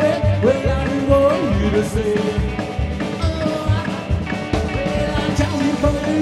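Rock and roll band playing live: upright double bass and drums keep a steady driving beat of about three pulses a second under a hollow-body electric guitar, while a man sings.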